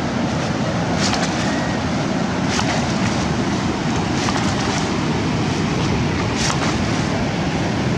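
Wind buffeting the microphone over surf washing up the beach, a steady heavy rush, with a few brief sharp sounds on top about 1, 2.5, 4.5 and 6.5 seconds in.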